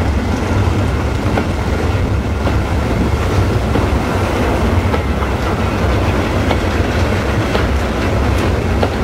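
Freight wagons (tank wagons and wooden goods wagons) of a train rolling past close by: a steady low rumble of steel wheels on the track, with occasional sharp clicks from the wheels and rail joints.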